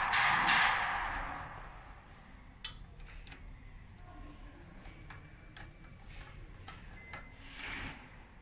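A loud rushing scrape right at the start that dies away over a second or so, followed by scattered light clicks and ticks, as of small hard parts being handled.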